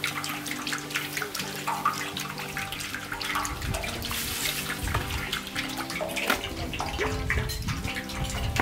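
Cooking oil poured in a steady stream from a plastic bottle into a large metal wok, splashing against the bare pan.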